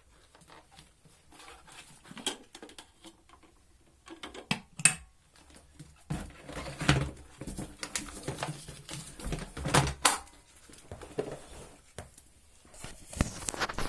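Scattered plastic clicks, knocks and rustling from handling an Electrolux EC41-4T vacuum cleaner's removable dust container, loudest in short clusters a few seconds apart.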